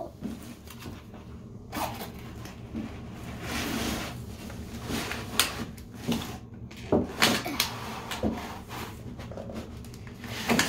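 Cardboard toy box with a clear plastic window being opened and handled, making irregular rustling, scraping and light knocks of cardboard and plastic.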